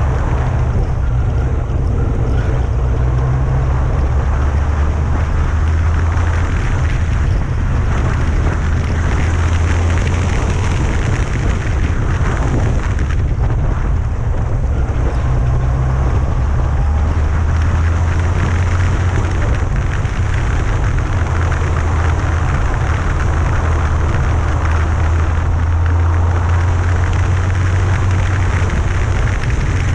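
A Yamaha FJR1300A motorcycle under way: heavy wind buffeting on the bike-mounted microphone over the steady running of its inline-four engine and road rumble, loud and even throughout.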